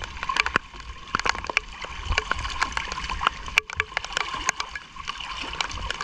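Rain falling on the sea and on a small wooden outrigger boat: many sharp drop ticks over a steady hiss, with water sloshing against the hull.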